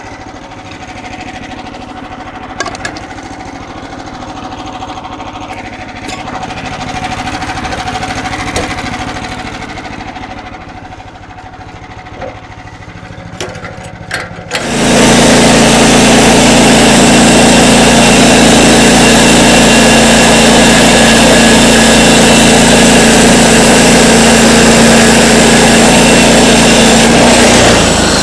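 Sawmill engine running at low speed, with a few sharp knocks. About halfway through it suddenly throttles up and runs very loud and steady, the sound of the mill sawing a log, then eases off slightly near the end.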